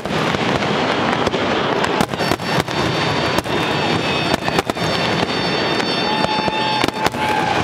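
Aerial fireworks shells bursting in quick succession: a dense run of sharp bangs over continuous crackling, with a steady whistling tone coming in about six seconds in.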